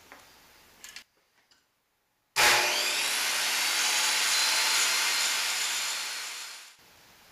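Power saw cutting the motor mounting plate to length: it starts suddenly about two seconds in, runs steadily for about four seconds, then fades away.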